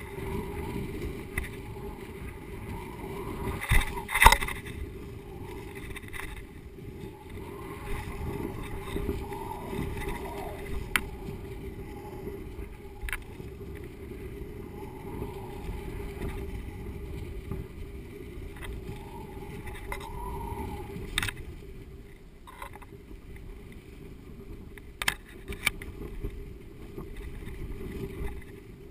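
Wind buffeting a GoPro HD Hero slung under a kite: a steady, muffled low rumble. Scattered sharp clicks and knocks come from the swinging camera rig, the loudest about four seconds in.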